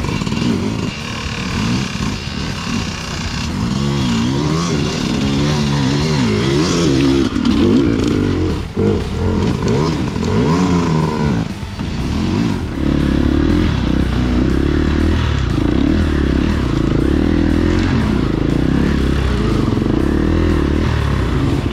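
Off-road vehicle engine pulling along a trail, its pitch rising and falling again and again as it accelerates and shifts. After about twelve seconds it runs steadier and a little louder.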